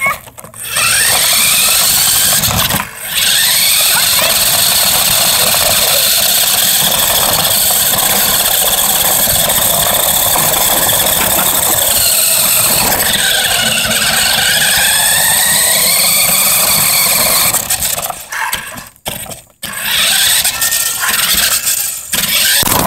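RC car driving, heard from a phone taped to its body: a loud motor whine with road noise that falls and rises in pitch with the throttle. It cuts out briefly a few times as the car eases off or stops.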